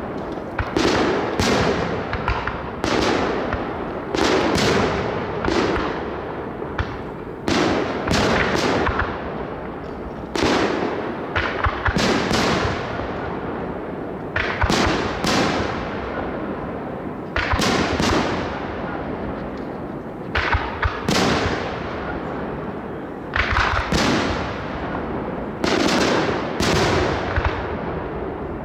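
Fireworks display: bursts going off every second or two, some in quick doubles and triples, each sharp bang trailing off in a rolling rumble of echo.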